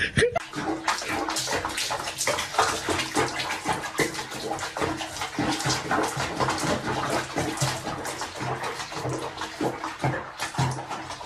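Water sloshing and splashing in a washbasin of soapy water as a cat is bathed in it.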